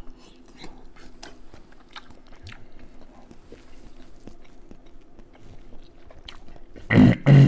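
Close-up mouth sounds of a man eating seafood: biting and chewing with many short wet smacks and clicks. Near the end, two loud short vocal sounds.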